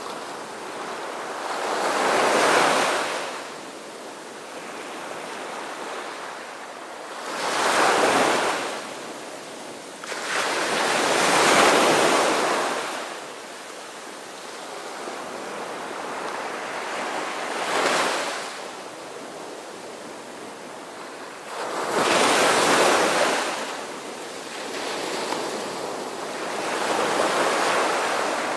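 Sea waves washing in, a rushing that swells and fades every few seconds.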